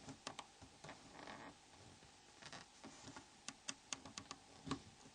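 Faint, scattered small clicks and light scraping: a plastic SRT6 opening tool prying at the snaps of a Nokia E70's T9 cover, with the snaps clicking free.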